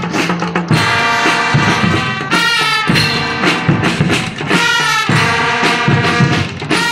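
School marching band playing: brass instruments hold a melody over steady bass drum and drum beats.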